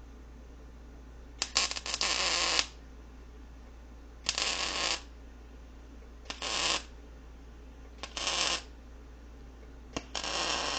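Wire-feed (MIG) welder laying short stitch welds: five bursts of crackling arc, each about half a second to a second long, each starting with a sharp snap as the arc strikes.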